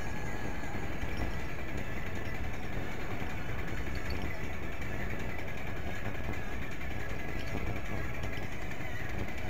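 Steady wind rush and rolling road noise picked up by an SQ23 mini action camera riding on a moving bicycle, with the low end fluttering from wind on the small microphone.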